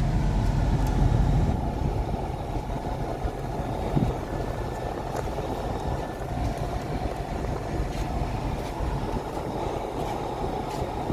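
Steady rushing of a car's climate-control blower fan running inside the cabin, with a single click about four seconds in.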